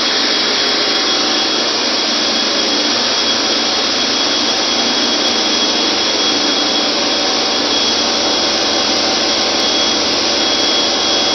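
Loud, steady machinery noise of a ship's engine room: a constant roar with a thin, steady high whine over it.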